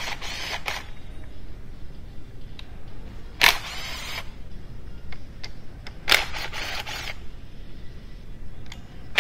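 Cordless power driver spinning bolts out of an engine's cylinder head in short bursts, each under a second, about every three seconds.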